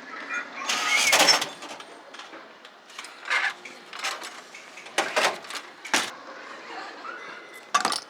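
A run of sharp knocks and clatters: a louder, longer rattling clatter about a second in, then single knocks every second or so, with one more sharp knock near the end.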